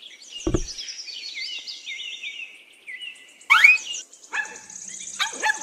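Small birds chirping in quick, falling chirps, with a short thump about half a second in and a loud rising whistle-like sweep about three and a half seconds in.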